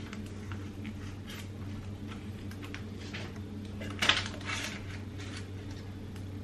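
Scissors cutting through a thin plastic peel-and-stick tile sheet: scattered small snips and crinkles of the sheet, with a louder crackling cut about four seconds in.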